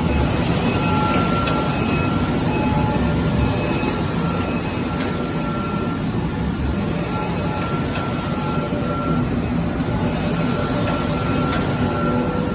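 Automatic folder gluer for corrugated cartons running: a steady mechanical rumble with a constant high whine and short high-pitched tones that come and go.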